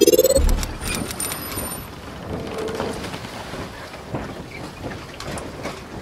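Logo-intro sound effect: a low boom about half a second in, a brief high ringing tone, then a steady noisy hiss with scattered clicks.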